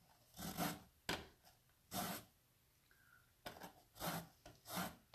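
Lemon rasped across the grating surface of a citrus zester, zesting the peel: about six short scraping strokes, with a pause of about a second in the middle.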